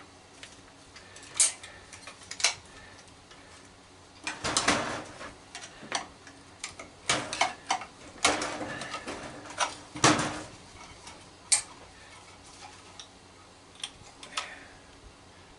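Irregular metal clicks, taps and short scrapes of a flathead screwdriver working screws and parts loose on an old microwave. They come thicker, with longer scraping, in the middle stretch.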